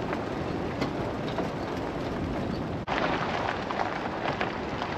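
Vehicle driving on a wet dirt road: steady tyre and road noise with scattered small ticks. It cuts off sharply about three seconds in, and a brighter rushing noise with scattered crackles follows.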